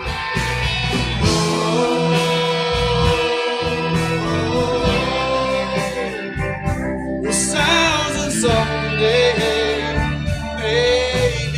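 Band music with a singer holding long, wavering notes over guitar.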